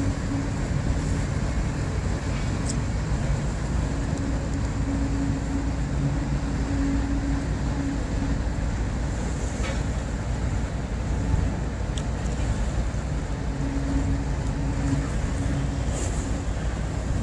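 A tugboat's diesel engines running steadily: a low drone with a humming tone that fades in and out.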